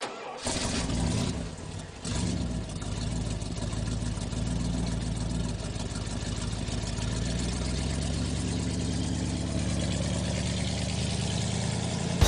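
Vehicle engine running: louder for the first second and a half, dipping briefly, then settling into a steady idle.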